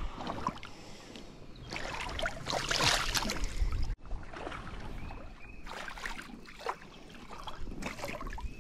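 Shallow river water splashing and trickling around a wading angler's legs, swelling to a louder rush of splashing between about two and three and a half seconds in.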